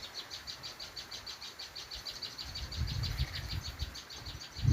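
Bar-winged prinia (ciblek) calling a rapid, even string of high chirps, about eight a second. Near its nest, this calling is taken as the sure sign that a nest is close by.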